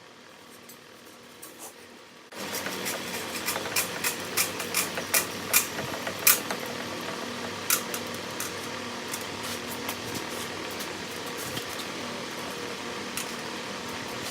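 Sidney metal lathe starting abruptly and running steadily, with a low hum, as it winds salvaged clothes-dryer resistance wire into a coil on a rod. Irregular sharp clicks and rattles of the wire come over the hum, thickest just after the lathe starts.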